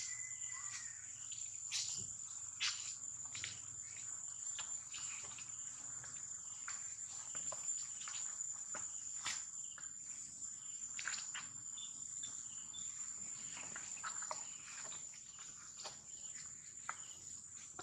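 Steady, high-pitched insect drone, with scattered faint clicks and rustles.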